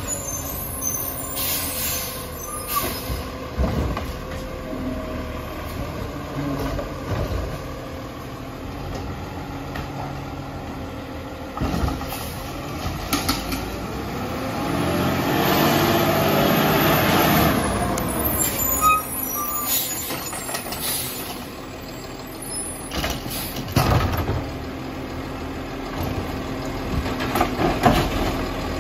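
Diesel engine of a CCC garbage truck with a Labrie Expert automated side-loader body, growing louder as the truck comes up and pulls to a stop, with air-brake hiss. A few sharp clanks follow as the grabber arm starts to work.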